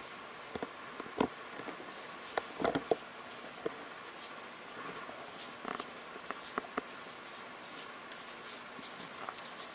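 Chinese painting brush dabbing and stroking ink onto absorbent paper: scattered short taps and scratchy rubs, the loudest a cluster nearly three seconds in, over a steady faint hiss.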